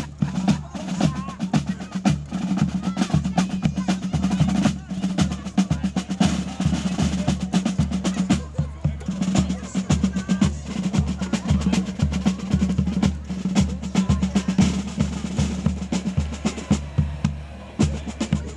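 Drum music with a steady bass-drum beat, snare-drum rolls and a held low note underneath.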